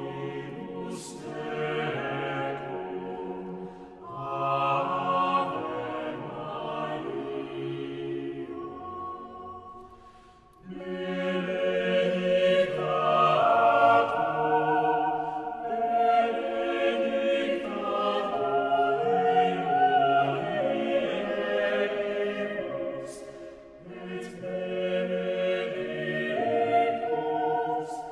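Choral music: a choir singing long, held phrases. There is a short break about four seconds in, a deeper pause about ten seconds in, and another dip near the end.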